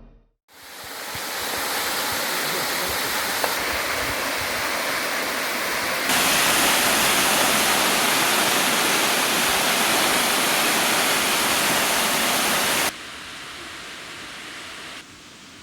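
Waterfall rushing: a steady wash of falling water that fades in after a moment of silence, jumps louder about six seconds in, and drops abruptly in level twice near the end.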